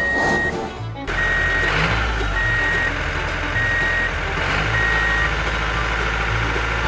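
Truck reversing alarm beeping steadily, five beeps about one a second, over a low steady rumble.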